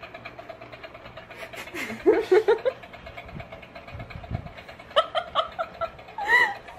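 Steady, rapidly pulsing whirr of a small battery motor, which fits a toy crawling hand riding on a cat's back. Bursts of human laughter and voice break in about two seconds in and again near the end.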